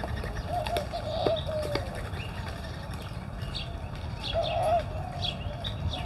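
Dove cooing in two phrases of several notes each, the first about half a second in and the second around four and a half seconds, with short high bird chirps scattered through.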